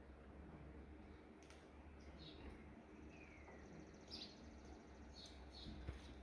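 Near silence with a low steady hum and a few faint, short bird chirps, one of them falling in pitch, plus a couple of faint clicks.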